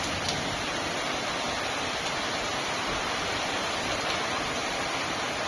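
Steady, even hiss of water, with no distinct splashes or pauses.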